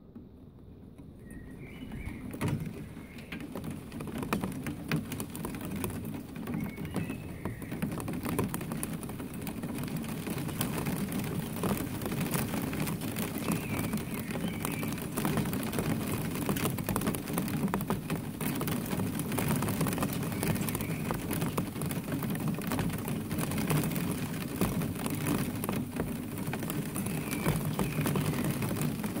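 Rain shower setting in: the hiss of falling rain grows from faint to heavy over about the first ten seconds, then holds steady. A few faint bird chirps come through in the first seconds and again near the end.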